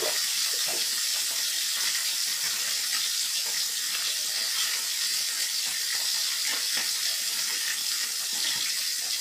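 Whole fish frying in hot oil in a wok: a steady sizzle with scattered faint pops and crackles.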